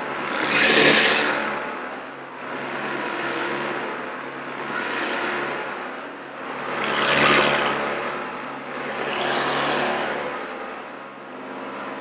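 Hoover Decade 80 upright vacuum cleaner running on carpet: a steady motor hum with a rushing airflow that swells loud and fades about four times as it is pushed back and forth.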